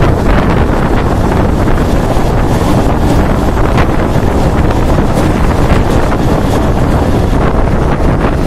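Loud wind buffeting the microphone from the speed of a moving Mumbai suburban electric train, mixed with the train's steady running noise on the rails.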